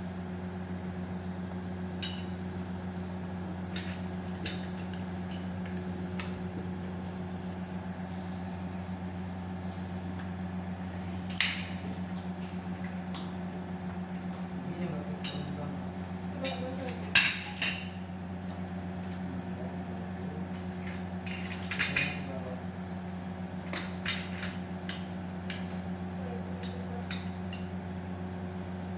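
Steady low electrical-sounding hum with scattered sharp clicks and knocks, a few louder ones a little after ten seconds in, around the middle and just past two-thirds of the way; faint voices in the background.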